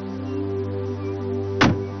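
Background music with held, steady tones, and a single loud car door slam about a second and a half in.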